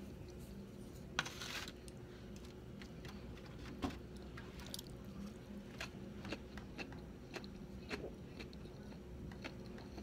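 Close-up chewing of sushi with the mouth closed: soft, irregular mouth clicks and smacks, with a brief louder noise about a second in, over a faint steady hum.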